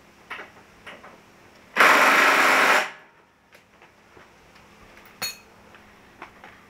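Small cordless impact driver hammering for about a second on a tight 18 mm end-link bolt through a long extension and universal joint, without breaking it loose. Light tool clicks around it and one sharp click near the end.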